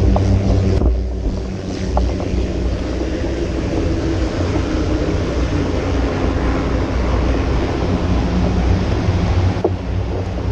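Off-road vehicle engine running steadily while riding, with wind noise on the microphone. The engine note dips about a second in, then holds steady.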